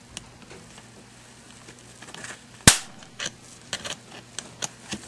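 A single sharp snap of a high-voltage spark about two and a half seconds in, as a homemade taser built from a camera flash circuit dumps its fully charged capacitor into a metal screwdriver. A few lighter clicks follow.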